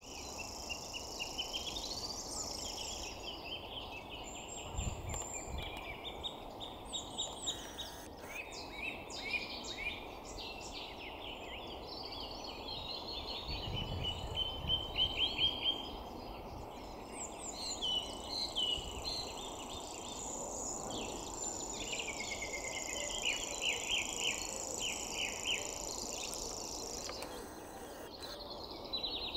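Grasshopper warbler reeling: a long, even, high-pitched trill like a fishing reel being wound, heard near the start and again through much of the second half, among the varied songs of other birds.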